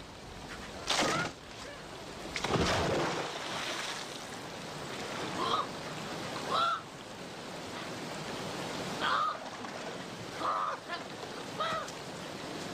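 Rushing river water, with two louder noisy bursts in the first few seconds, then five short, high, arching animal cries spread over the rest.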